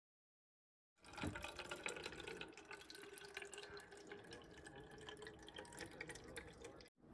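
Cooking oil poured in a thin stream from a plastic jug into a clear plastic bottle: a steady trickling pour starting about a second in and cutting off just before the end.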